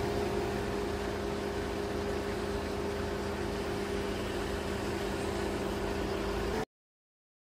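A steady mechanical hum, like an engine idling, over an even hiss; it cuts off abruptly about six and a half seconds in, leaving dead silence.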